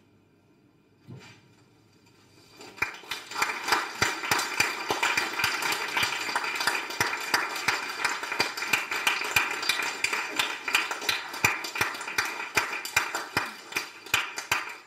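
Small audience applauding, the single claps distinct, starting about two and a half seconds in and stopping near the end.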